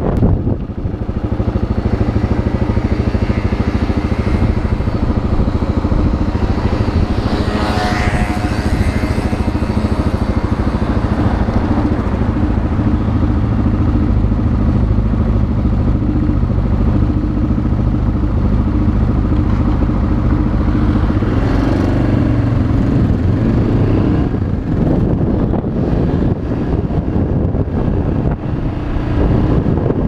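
Yamaha XT600 2KF's single-cylinder four-stroke engine running steadily under way, recorded on board the moving motorcycle. The steady note gives way to a less even one about three-quarters of the way through.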